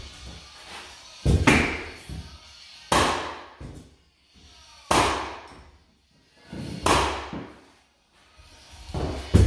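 Pneumatic flooring nailer struck to drive nails through hardwood floorboards: sharp bangs roughly every two seconds, five or so in all.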